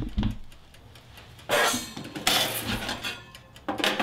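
Toaster oven door being opened and its wire rack rattled with pliers: a thump at the start, then three short bursts of sheet-metal and wire clatter, about a second and a half in, around two and a half seconds, and near the end.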